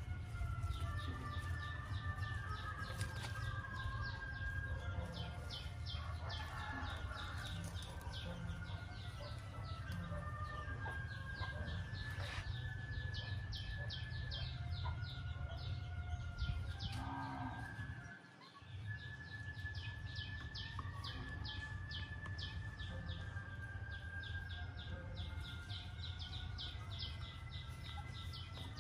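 Outdoor animal calls: rapid runs of short high chirps and longer drawn-out calls over a steady low rumble, which briefly drops out about two-thirds of the way through.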